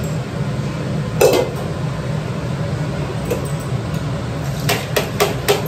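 Kitchen dishes and utensils being handled and clinking: one knock about a second in, then a quick run of four clinks near the end, over a steady low hum.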